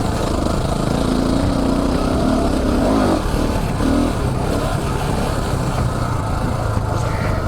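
Single-cylinder dual-sport motorcycle engine running under way, its pitch rising and falling a few seconds in as the throttle changes.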